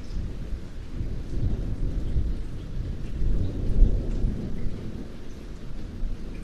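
Rain falling steadily under a low rumble of thunder that swells to a peak a few seconds in and then eases off.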